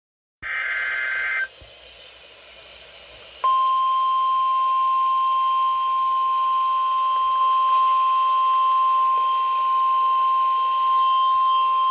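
NOAA Weather Radio emergency alert: a short burst of warbling SAME digital header data tones about half a second in, then a couple of seconds of radio hiss. The steady 1050 Hz weather radio warning alarm tone comes in about three and a half seconds in and holds as one loud, unbroken high beep, marking a warning being broadcast.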